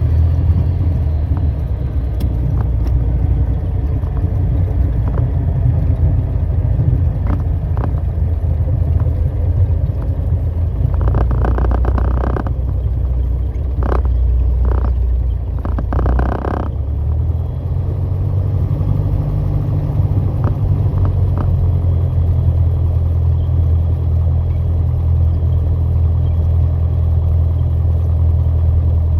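Piper PA-28 Warrior's four-cylinder Lycoming engine running steadily, a deep, even drone heard from inside the cabin, with its note shifting slightly about two-thirds of the way through. Two short bursts of hiss break in around the middle.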